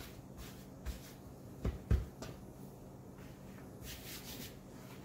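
Hands working pie crust dough on a countertop: a few soft knocks about two seconds in and a brief rustle near the end.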